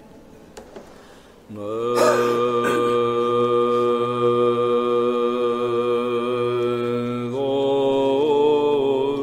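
Byzantine chant sung by male chanters. After a brief pause, the melody enters about a second and a half in on a long held note over a steady low drone (the ison), and starts to move again near the end.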